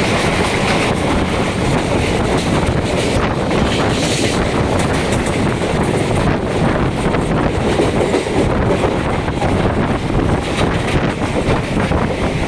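Moving suburban electric commuter train: a steady rumble of wheels on the rails with scattered clicks, and wind buffeting the microphone.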